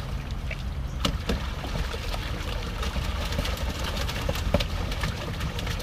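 Water dripping and splashing as a wet fish net is handled at the pond's edge, in many short irregular splashes, over a steady low motor hum.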